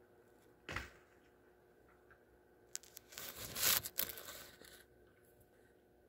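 Rustling, crinkling noise: a brief rustle about a second in, then a louder crackling rustle lasting about two seconds in the middle.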